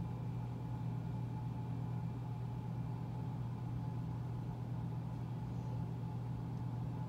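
Steady low hum that holds the same level throughout, with no speech over it.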